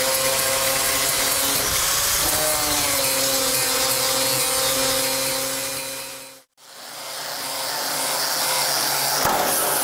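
Electric angle grinder grinding spot-weld remnants off a truck cab's sheet-metal drip rail, a steady whine over grinding noise that wavers in pitch about two seconds in. It fades out about two-thirds of the way through and comes back as a grinder sanding the bare steel roof panel with an abrasive disc.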